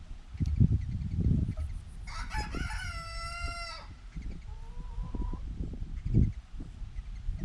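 A drawn-out animal call lasting nearly two seconds, starting about two seconds in, with a slight fall in pitch at the end. A fainter short call follows about a second later, over irregular low rumbles.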